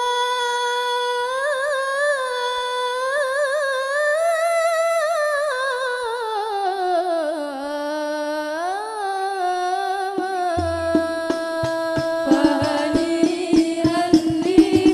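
A solo female voice sings a slow, ornamented sholawat melody in hadrah al-Banjari style, unaccompanied at first and slowly falling in pitch. About ten seconds in, rebana frame drums enter with quick strikes and deep bass hits under the singing.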